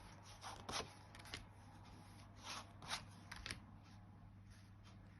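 Tarot cards being handled and laid out: faint, scattered rustles and soft taps over a low steady hum.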